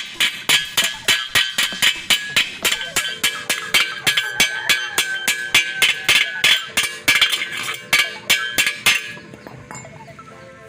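Rapid hammer strikes on thin steel square tubing, about three or four a second, each leaving a metallic ring, stopping near the end.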